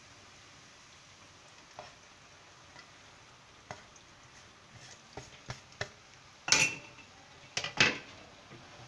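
Wooden spoon and plate knocking and scraping against a metal pan as torn bread is tipped into hot ghee and stirred, over a faint sizzle. The knocks come more often in the second half, with two louder clatters near the end.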